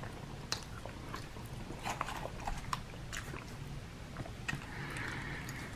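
Mouth sounds of someone eating: soft chewing with scattered short smacking clicks, over a faint steady low hum.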